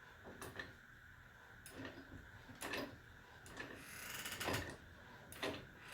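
Faint metal clicks and scrapes, about one a second, with a short hiss about four seconds in, as a wrench turns the long-threaded end of a tractor's hydraulic cylinder loose.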